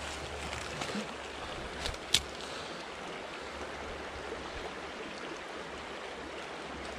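Steady rush of a small creek's flowing water, with a single sharp click about two seconds in.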